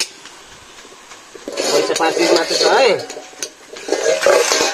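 A metal ladle stirring and scraping food in a steel wok, with clinks of steel plates and cutlery. The scraping comes in two loud spells, about a second and a half in and again near the end.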